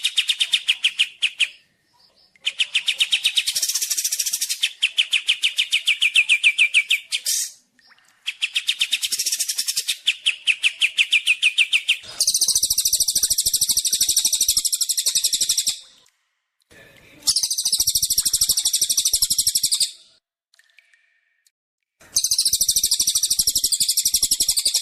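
Recorded songbird song of kapas tembak and cililin: bursts of fast, evenly repeated trill notes in the first half, then from about halfway a higher, buzzier trill in bursts of three to four seconds separated by short pauses.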